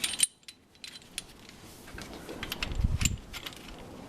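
Metal clinks and taps from a disc brake caliper piston wind-back tool being fitted into a rear brake caliper, with a dull knock about three seconds in.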